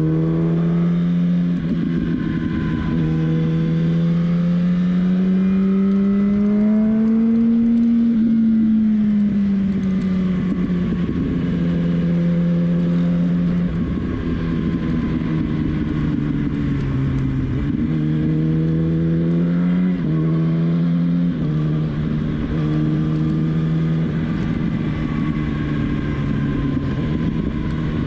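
Inline-four sport motorcycle engine heard from the rider's position while riding, under a steady rush of wind. The revs climb gradually for the first several seconds and then ease off. In the second half the pitch jumps suddenly several times as gears change.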